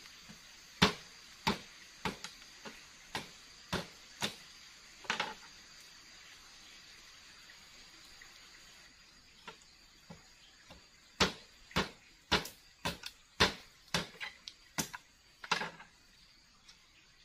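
Sharp wooden knocks and cracks as a long stick is worked in a small campfire. There are about seven irregular knocks in the first few seconds, a pause, then a quicker cluster of about ten near the end. A faint, steady, high-pitched drone of forest insects runs underneath.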